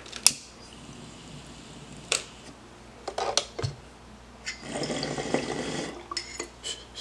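Glass water bong bubbling as smoke is drawn through its water, with a long bubbling pull about two-thirds of the way in. A few sharp clicks come before it as the lighter is worked at the bowl.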